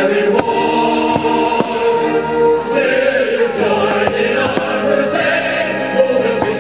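Choral music with long held sung notes, the soundtrack of a fireworks show. Several sharp firework bangs cut through it.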